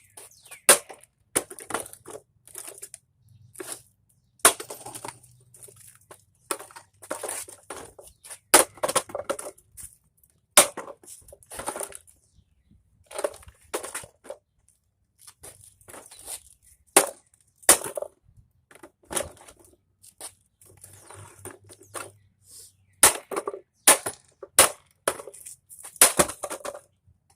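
The casing around an air mattress's built-in pump motor being smashed and broken apart: a run of sharp, irregular cracks and knocks, about one or two a second.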